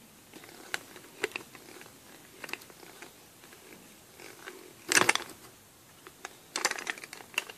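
Small twist drill bit turned by hand into hard plastic, cutting with irregular crunching and creaking crackles, the loudest burst about five seconds in and another run of crackles near the end.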